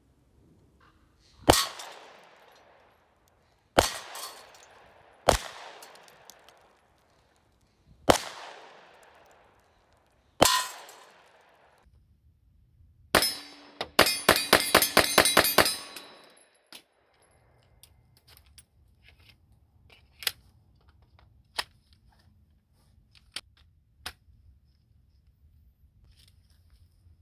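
Pistol-calibre gunshots from a Glock pistol fitted in a CAA Micro Roni carbine kit. First five single shots come a second or two apart, each trailing off over a second or two. Then, about halfway in, a fast string of about a dozen shots, followed by faint clicks of handling.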